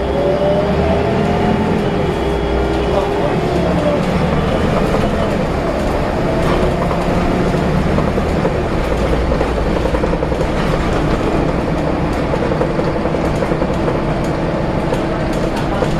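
Volvo B7RLE single-decker bus under way, with its six-cylinder diesel and driveline heard from inside the saloon as a steady low rumble. A whine rises in pitch over the first couple of seconds, then holds steady; this is the odd noise the bus makes at this point.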